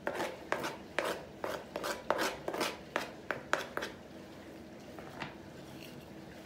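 A fork tapping and scraping against a plastic cutting board and plate, knocking chopped parsley off into crumbled cheese: a quick run of sharp clicks, about three a second, that stops about four seconds in.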